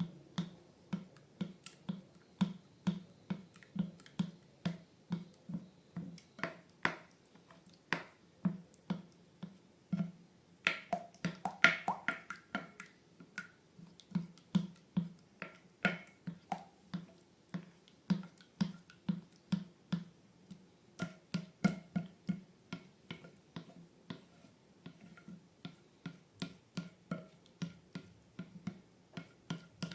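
Slime being squeezed and worked by hand: soft sticky clicks and pops, each with a dull low thud, about two to three a second.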